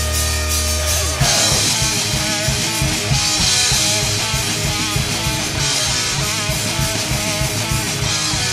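Thrash metal song: a held distorted electric guitar chord, then about a second in the full band comes in with fast drumming and riffing guitars.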